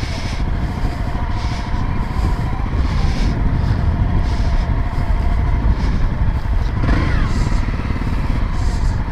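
Honda CRF250L dirt bike's single-cylinder four-stroke engine running steadily in first gear.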